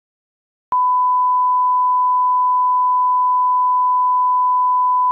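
Television test tone played with colour bars: one steady, pure, single-pitch beep that starts suddenly under a second in.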